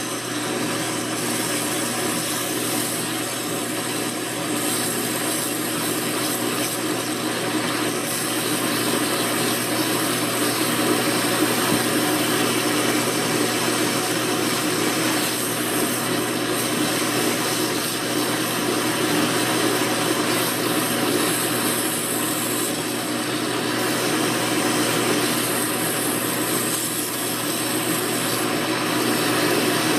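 Metal lathe running with a strip of 180-grit abrasive cloth held against the spinning steel spindle: a steady rubbing hiss over the lathe's running hum, as the spindle is polished clean.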